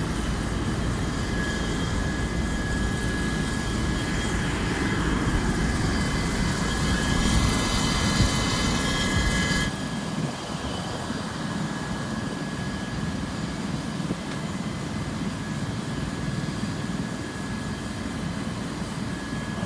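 Steady engine drone from emergency vehicles, with a few faint steady tones over it. The deep rumble drops away abruptly about ten seconds in, leaving a lighter, steadier drone.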